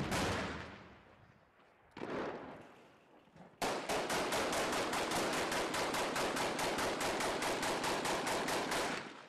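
The blast of a rocket-propelled grenade shot dying away, a second sharp blast about two seconds in, then a long burst of rapid automatic gunfire, about seven or eight rounds a second, that stops just before the end.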